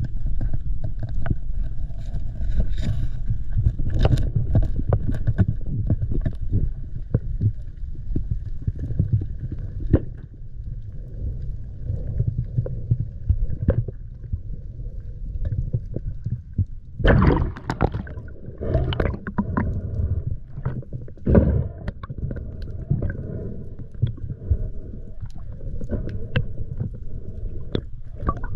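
Muffled water noise picked up by a GoPro in its waterproof housing: a steady low rumble with small knocks and clicks, and a few louder gurgling rushes of water about two thirds of the way through.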